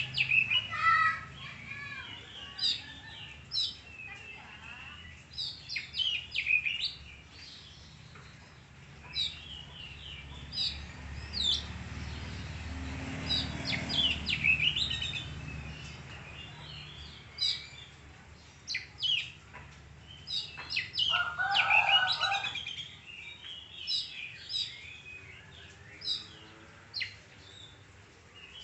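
Oriental magpie-robin (kacer) singing: quick bursts of sharp, high whistled and chattering notes with short pauses between phrases. A low rumble swells and fades near the middle.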